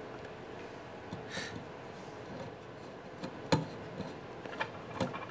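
Small scattered clicks and light scraping of a screwdriver tip working the screw of a crossover's speaker-wire terminal while the wire is pushed in. The sharpest click comes about three and a half seconds in.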